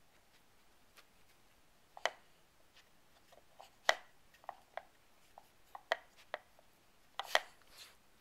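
Dog puzzle toy's black sliding lids and wooden board clicking and knocking as a Shiba Inu noses and paws at them: a string of sharp clicks, the loudest about four seconds in and again near the end.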